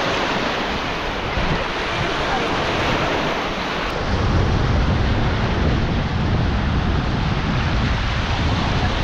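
Lake Michigan waves washing onto the beach, mixed with wind noise on the microphone. About four seconds in the sound changes abruptly and a low wind rumble becomes much stronger.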